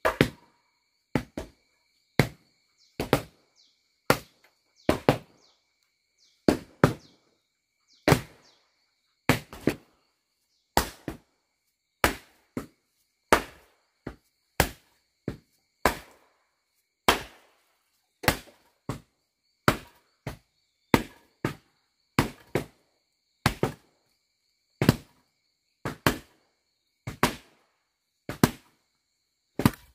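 Flat wooden paddle beating down on a damp earth floor to pack the soil, a sharp thud about once a second, some followed by a lighter second hit.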